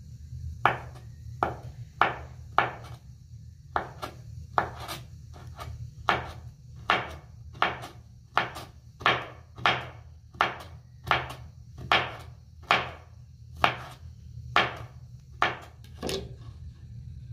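Kitchen knife chopping raw belly fat on a hard cutting board: about twenty sharp knocks of the blade against the board, at a steady pace of roughly one every three-quarters of a second, over a steady low hum.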